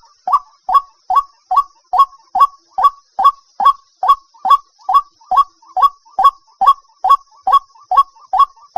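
White-breasted waterhen calling: a long, steady series of short, identical 'kook' notes, a little more than two a second, unbroken through the stretch.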